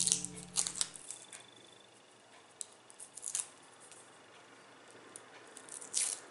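Dry, papery garlic skins crackling and rustling as cloves are peeled by hand, in irregular crisp crackles with a louder cluster near the end. A musical jingle fades out in the first second.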